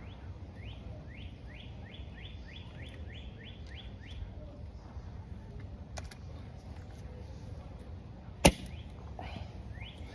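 A bird calling in a quick series of rising chirps, about three a second, stopping for several seconds and starting again near the end. A single sharp click about two thirds of the way through.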